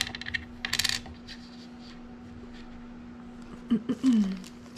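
Small hard resin charms clicking and rattling against each other as they are picked through by hand, in a burst during the first second. A faint steady hum runs underneath, and a brief falling-pitched sound comes near the end.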